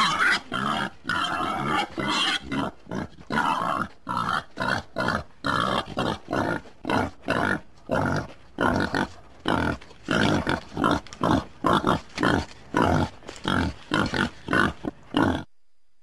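Wild boar grunting in a fast run of short calls, about two a second, that cuts off shortly before the end.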